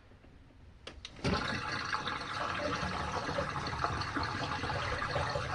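Portable RV washing machine draining its hot wash water: a click or two, then from about a second in a steady rush of water pouring out through the drain hose.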